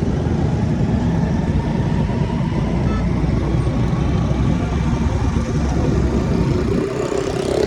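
Vehicle engine and road noise, loud and steady, with a dense low rumble.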